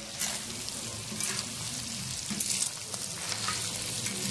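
Cubed pork and ground beef sizzling as they fry and brown in a discada's steel plow disc, with a spatula scraping through the meat about once a second.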